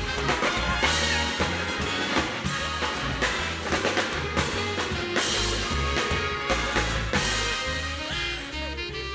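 Big band jazz ensemble playing an instrumental swing passage: brass and saxophones over a walking bass and drum kit with steady cymbal and rimshot hits.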